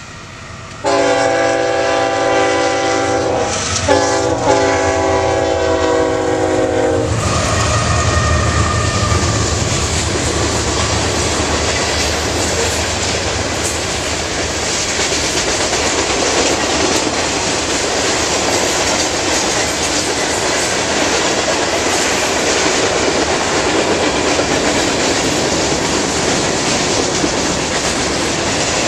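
A train horn sounds about a second in: two long blasts of a several-note chord, ending around seven seconds. Then a long train's cars rumble and clatter steadily past.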